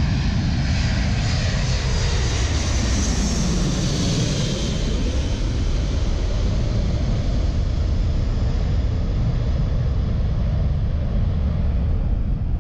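Boeing C-17A Globemaster III passing low overhead on approach, its four turbofan engines running loudly. The engine whine drops in pitch over the first few seconds as it goes by, leaving a heavy rumble as it moves away toward the runway.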